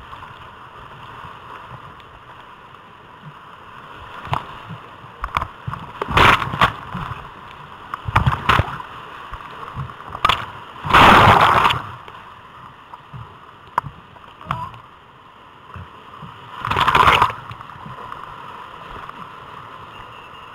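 Whitewater river gurgling and splashing over a camera that is dipping underwater, a steady rush broken by several short loud surges of water, the loudest about eleven seconds in.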